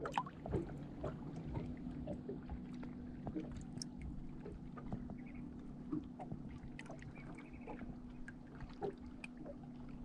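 Small ripples lapping and plinking against a boat's hull just below the microphone, in many small irregular splashes, over a faint steady low hum.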